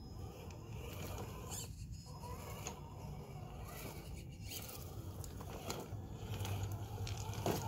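Traxxas TRX-4 Bronco RC crawler creeping over rocks: its electric motor and gears run with a low hum and a faint whine, while the tyres scrabble and click on the stone, with a sharper knock near the end.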